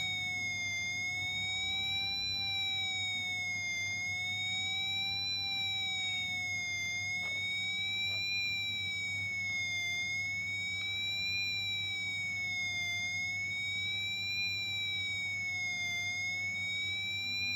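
Arduino-built police siren circuit sounding a wailing electronic tone that glides slowly up and down, about once every three seconds, steady in loudness, over a faint low hum.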